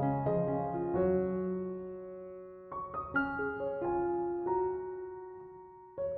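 Background piano music: soft chords and notes struck in small groups, each left to ring and fade.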